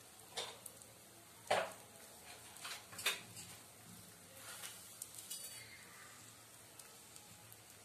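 Oil frying gently with dried red chillies and asafoetida in a nonstick kadai, a faint steady sizzle. Several light clinks of kitchen utensils come over it in the first few seconds, the loudest about a second and a half in.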